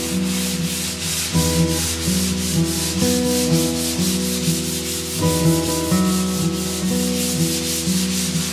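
Hand sanding of a wooden canoe hull: sandpaper rubbed back and forth in quick, even strokes, about four or five a second, over background music with soft held notes.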